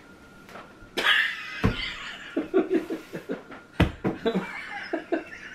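Men laughing in short bursts, set off by a sudden loud noisy outburst about a second in, with two sharp thumps.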